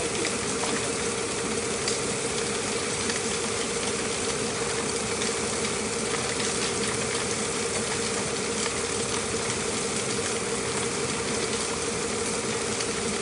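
An engine running steadily: a constant mid-pitched hum over an even hiss, with faint scattered ticks and no change in speed.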